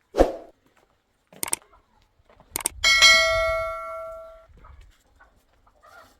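A dull thud, two sharp clicks, then a metal object struck once, ringing for about a second and a half as it fades.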